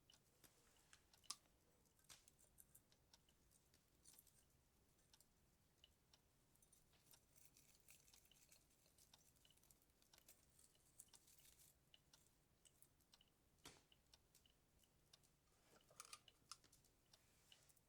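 Faint, scattered light clicks and taps with a little rustle: Christmas-tree baubles being handled and hung on the branches. The sharpest click comes near the end of the first two thirds, and a short flurry of clicks comes near the end.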